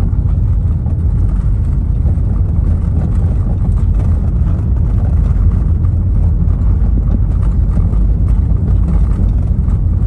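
Loud, steady low rumble with no speech.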